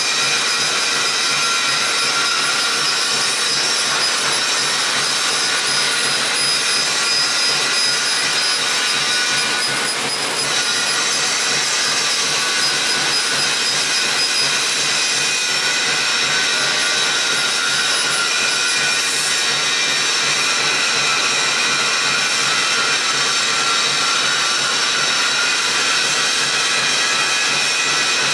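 CNC laser cutting machine cutting sheet metal: a steady hiss with several constant high whining tones, shifting slightly about ten seconds in.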